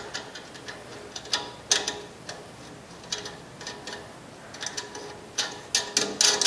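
Steel U-bolt exhaust clamp clinking and clicking as it is worked around a tin-can patch on the exhaust pipe and its nuts are turned by hand. The sharp clicks come in irregular clusters, quickening and growing louder near the end.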